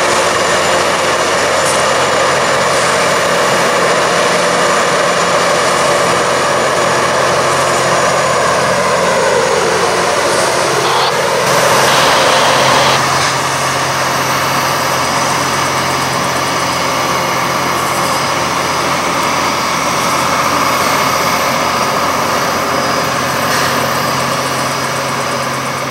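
Loram rail grinder working along the track: a loud, steady rushing noise of grinding on the rails over a steady low hum from the machine. Near the middle the sound dips and rises again in pitch, followed by a briefly louder stretch.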